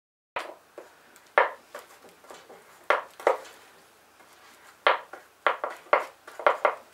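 Sharp clinks and knocks of small hard objects being handled at a worktable, about nine irregular strikes with a brief ring after each, starting suddenly a moment in.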